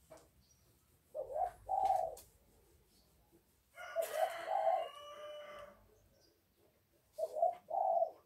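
Birds calling: a short two-part call a little over a second in and again near the end, with a longer, fuller call in the middle.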